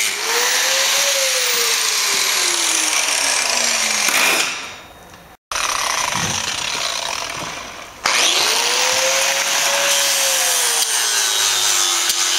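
Angle grinder grinding a steel power-hammer die clamped in a vise; the motor's whine sags in pitch as it is pressed into the work. About four seconds in it lets up and winds down, and about eight seconds in it spins up again with a rising whine and goes back to grinding.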